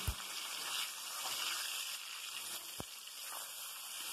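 Marinated chicken sizzling faintly in hot oil with browned onions in a kadai, as it starts to be stir-fried, with one faint knock about three seconds in.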